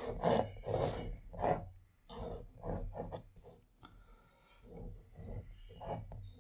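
Pencil drawing on watercolour paper: a run of short scratchy strokes, the first few louder, then softer ones.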